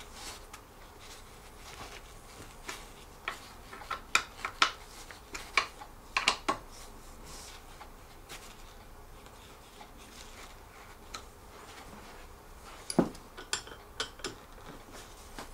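A small metal assembly tool clicking and clinking against a leg bolt as the chair's wooden legs are tightened by hand, in scattered sharp ticks. They come in clusters about four to seven seconds in and again near the end, the loudest about thirteen seconds in.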